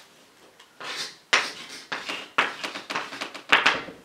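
Chalk writing on a blackboard: a run of short scratchy strokes, each starting with a sharp tap, beginning about a second in.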